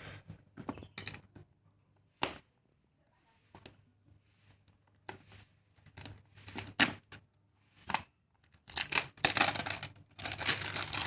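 Packaging being handled during a phone unboxing: scattered clicks and taps, then a denser stretch of crinkling and tearing near the end.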